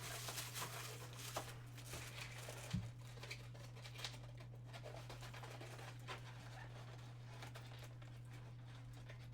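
Faint rustling and clicking of cardboard and plastic packaging as a lightsaber blade is worked free of the bands holding it in its box, mostly in the first few seconds, over a steady low hum.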